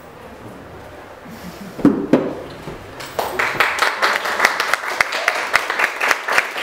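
Audience applauding, starting about three seconds in as dense, steady clapping, with a loud shout just before it and a few cheers mixed in.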